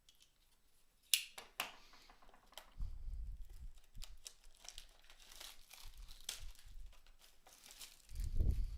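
Plastic wrap crinkling and tearing as a blaster box of trading cards is opened by hand. There are two sharp clicks about a second in, and dull handling thumps around three seconds in and again near the end.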